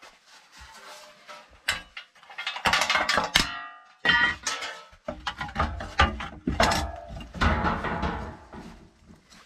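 Irregular knocking and clattering of hard objects being handled, some knocks ringing briefly.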